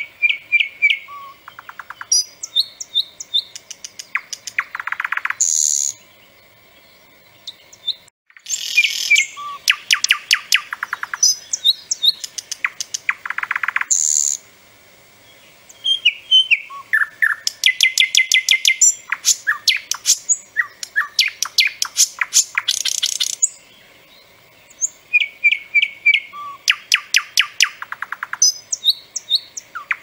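Nightingale singing: loud phrases of rapid repeated notes, rattling trills and whistles, four phrases with pauses of about two seconds between them.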